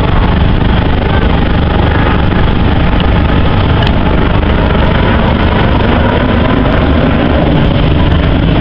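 Loud, steady roar of a display aircraft's jet engines overhead.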